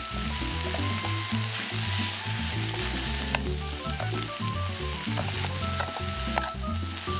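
Food frying in a pan over a campfire, a steady sizzle with a couple of sharp clicks. Instrumental background music with a stepping melody and bass plays over it.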